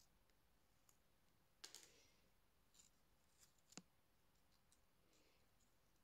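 Faint clicks and crinkles of small cut paper pieces being bent and folded by fingers: a louder crackle about a second and a half in and a sharp click about two seconds after it, with a few smaller ticks.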